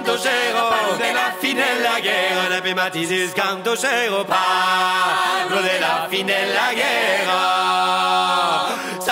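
Music: a vocal group singing chant-like polyphony in several voices, with a few sharp percussive hits.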